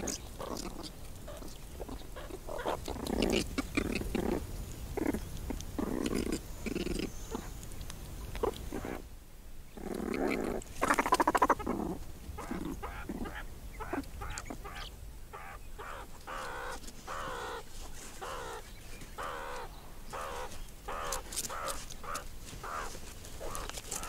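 Meerkats calling during a territorial clash between rival groups: many short, rapid chattering and growling calls one after another, with a louder flurry about ten seconds in.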